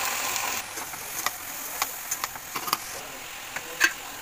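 Kitchen sounds from a steel pan of chopped brinjal and tomato. A steady hiss stops abruptly about half a second in, followed by scattered sharp clicks and light knocks, the loudest just before the end.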